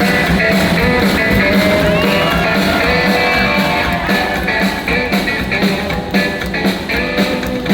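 Rockabilly band playing live: electric guitar lead with bent notes over a steady bass and drum beat.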